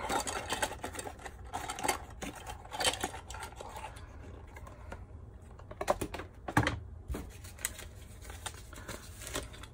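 Hands opening a small cardboard box and pulling out a plastic charger: scattered cardboard rustles, scrapes and light clicks, with one louder knock about six and a half seconds in.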